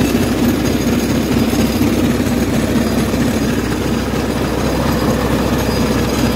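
Belt-driven paddy huller running steadily while hulling rice: a loud, continuous mechanical rattle and hum from the hulling drum and its drive belt and pulley.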